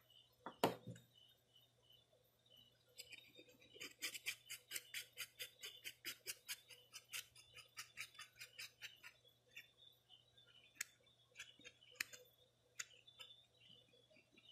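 Hands working on a folded-paper origami mask: a quiet, quick run of light ticks and taps, about six a second, from about four seconds in for some five seconds, with a single click near the start and scattered ticks after.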